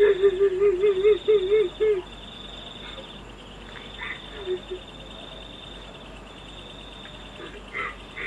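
Night-time forest sound with a steady high cricket trill and a few short chirps. In the first two seconds a wavering, sob-like wail rises and falls several times; it is presented as a kuntilanak crying.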